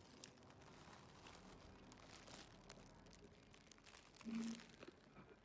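Near silence with faint crinkling and rustling of a thin plastic bag around a sandwich, and one short pitched sound a little over four seconds in.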